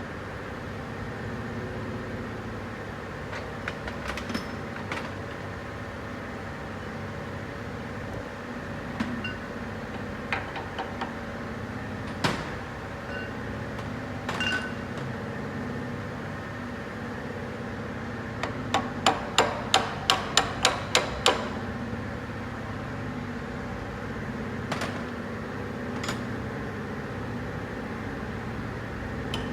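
Hand tools working on a Toyota 3UR-FE V8 during teardown: scattered sharp metal clicks and knocks over a steady hum, with a quick run of about a dozen clicks, roughly five a second, a little past the middle.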